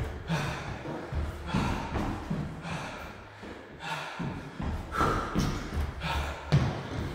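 Trainers thudding repeatedly on a wooden floor during jogging cardio, with heavy breathing from the exertion.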